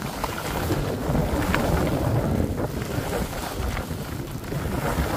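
Wind buffeting the microphone as a skier moves down a snowy slope: an uneven, low rushing noise that swells and dips.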